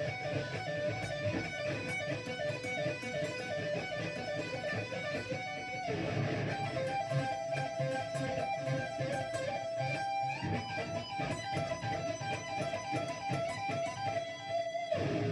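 Electric guitar playing a fast, repeating three-note lick on the high E and B strings: two notes picked in alternate down and up strokes, one sounded by a pull-off. The figure moves to new notes about six seconds in and again about ten seconds in.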